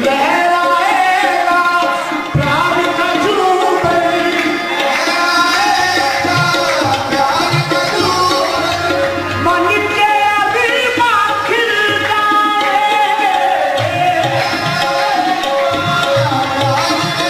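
Qawwali music: a voice singing long, bending melodic lines over a harmonium, with hand-drum beats coming and going underneath.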